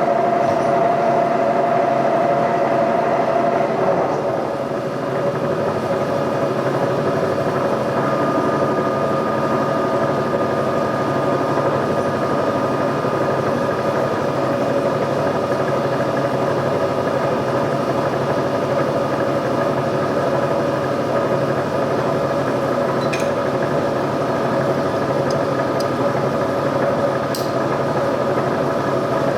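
Milling machine running a boring bar in a bore: a steady machine hum with several whining tones from the spindle drive. The whine shifts about four seconds in, and a new higher whine comes in about eight seconds in, with a few faint ticks near the end.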